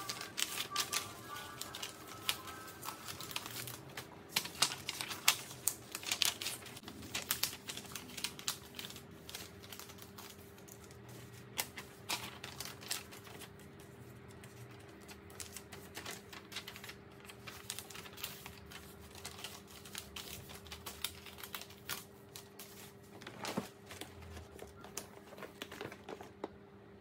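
Sheets of A4 printer paper being handled and folded in half by hand: irregular crisp rustles, taps and creasing clicks as each flyer is folded and dropped into a bag of folded flyers, over a faint steady low hum.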